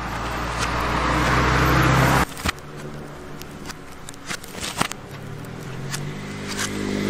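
A motor vehicle engine runs steadily and grows louder, then cuts off abruptly about two seconds in, and comes back and builds again near the end. Scattered sharp clicks and crackles from the smouldering coconut-husk fire are heard between.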